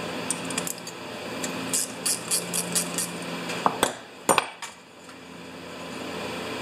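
Small metal clicks from a wrench working the bowl nut off a Tecumseh snowblower carburetor, then a few sharper metal knocks about four seconds in.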